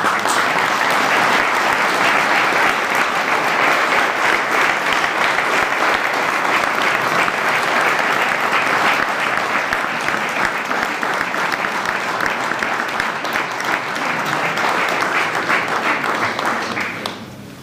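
Crowd of people applauding, starting suddenly and dying down near the end.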